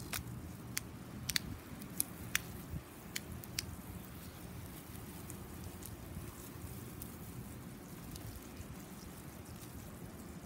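Garden hose spraying a stream of water onto artificial turf: a steady, soft splashing, with several sharp drip-like taps in the first few seconds.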